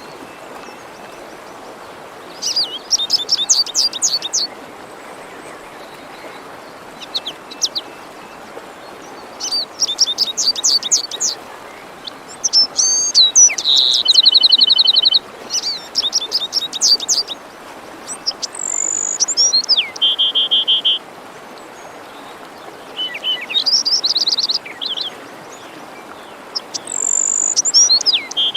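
Songbirds singing short, repeated phrases of quick high notes and trills, one after another, over the steady rush of a forest stream.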